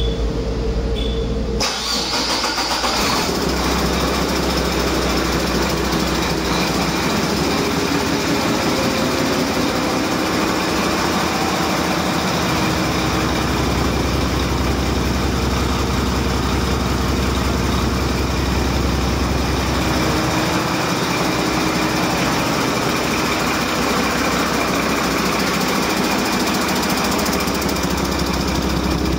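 Used 2009 Mack MP7 inline-six turbo diesel running on a test stand. The sound turns suddenly fuller about two seconds in, then the engine runs steadily. The seller says it runs excellent.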